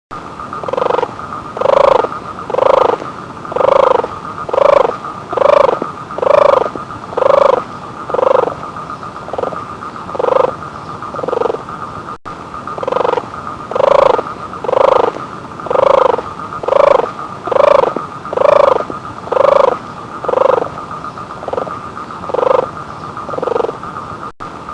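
An animal call repeated about once a second, each call short, over a steady high-pitched drone.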